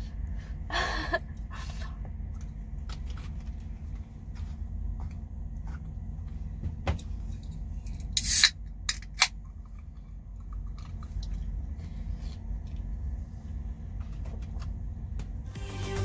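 A fork clicking and scraping against a food container during a meal: scattered light clicks, with a short louder clatter a little past halfway, over a steady low hum in the truck cab.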